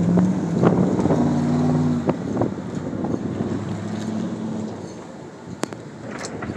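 A motor vehicle engine running nearby, its pitch stepping between steady levels for the first few seconds, over gusty wind noise. A louder rumble swells up right at the end.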